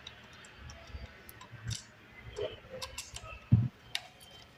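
Scattered small ticks and clicks of a screw being driven into an Argon One Raspberry Pi case, with one dull thump about three and a half seconds in.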